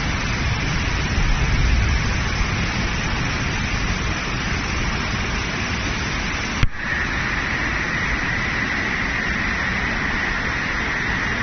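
Muddy floodwater of a swollen river rushing under and over a bridge: a steady, dense noise with a strong low rumble. A short click comes about two-thirds of the way through.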